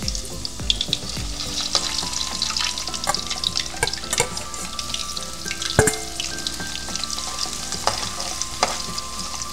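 Potato pieces deep-frying in a wok of hot oil: a steady sizzle full of crackling pops, with one sharper click about six seconds in.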